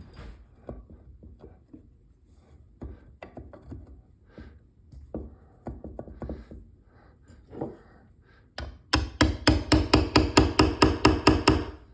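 Light handling clicks and knocks as parts are positioned, then a fast run of ringing hammer taps, about five or six a second for roughly three seconds near the end, marking hole centres through the lined-up vise.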